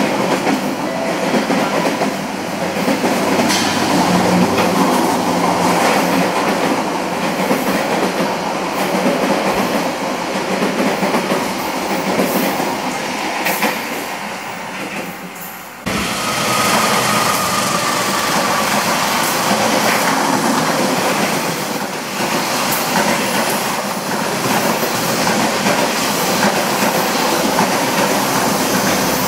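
Passenger train coaches running past a station platform, steel wheels rolling over the rails in a loud, steady rumble. About 16 seconds in the sound cuts abruptly to another passing train, with a faint high wheel whine soon after.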